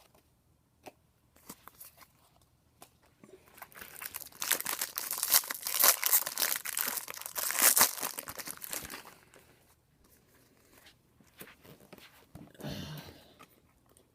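A Bowman Draft baseball card pack being torn open, its wrapper crinkling loudly for about five seconds in the middle. A few light ticks come before it and a short rustle near the end.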